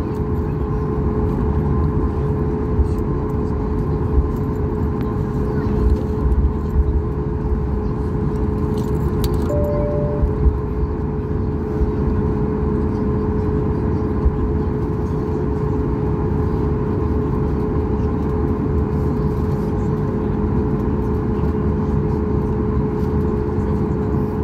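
Cabin noise of a Boeing 737 MAX 8 taxiing, heard from a window seat over the wing: a steady low rumble with the CFM LEAP-1B engine's constant whine. A brief higher tone sounds about ten seconds in.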